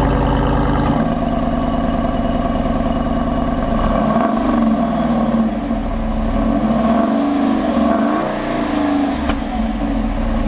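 Jeep Wrangler Rubicon 392's 6.4-litre Hemi V8 running through its dual exhaust: a steady idle, with the revs lifting and falling a couple of times in the middle. A single sharp click comes near the end.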